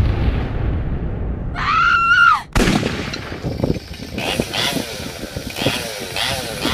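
A sudden boom at the start, dying away, and a short rising-and-falling squeal about two seconds in; then from about two and a half seconds in a Stihl MS 200 T top-handle two-stroke chainsaw runs, its pitch rising and falling again and again.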